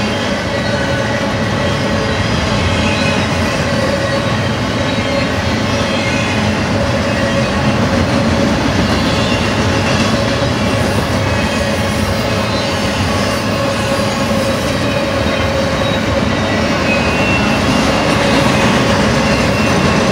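Double-stack intermodal freight train's well cars rolling past at close range: a steady rumble of steel wheels on rail, with a thin squeal from the wheels running over it.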